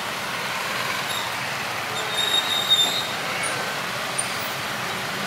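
Twin-turboprop ATR airliner's engines at takeoff power through the takeoff roll and liftoff: a steady, even roar. A few brief high chirps come about two seconds in.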